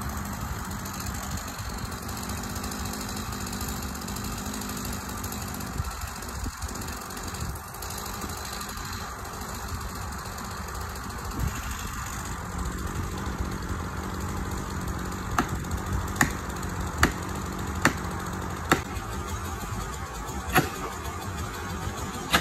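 Engine running steadily at an even speed. In the last third there is a run of sharp knocks, under a second apart at first, then two more spaced further out.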